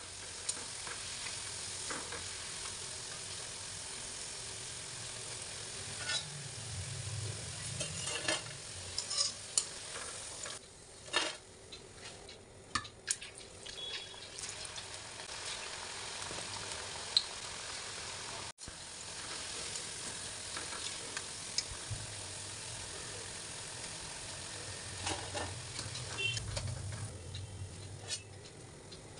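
Pakoras deep-frying in hot oil in a metal kadhai: a steady sizzling hiss, with scattered clinks and scrapes of a utensil against the pan.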